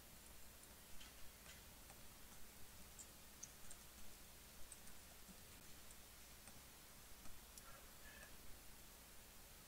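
Near silence: room tone with a low steady hum and faint, irregular clicks and ticks.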